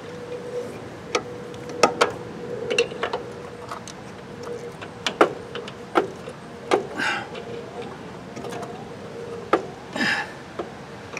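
Wrench turning a threaded black iron pipe elbow onto a garden tractor's oil drain tube: irregular metal clinks and knocks, a dozen or so, over a faint steady hum.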